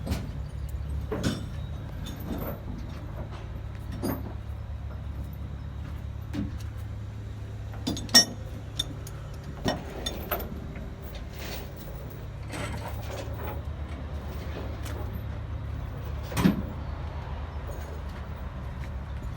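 An engine running steadily at low speed, with scattered knocks and clunks over it, the loudest about eight and sixteen seconds in.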